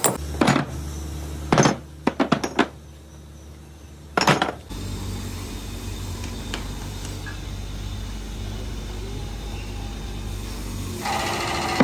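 Cast metal brake cylinder bodies clinking and knocking against metal as they are handled, with a handful of sharp knocks in the first four seconds or so, then a steady low hum.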